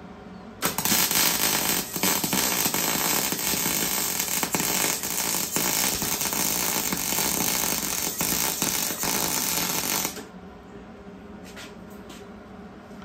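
Electric arc welding on galvanized steel Unistrut channel: a steady, dense crackling sizzle of the arc that starts about half a second in and cuts off about ten seconds in as the weld stops.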